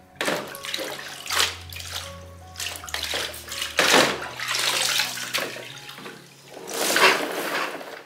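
Water pouring and splashing in irregular gushes, over quiet background music.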